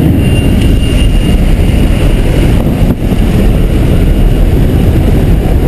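Loud, steady noise of a propeller plane's engine and the slipstream rushing through the open jump door, heard from inside the cabin. It dips briefly about three seconds in.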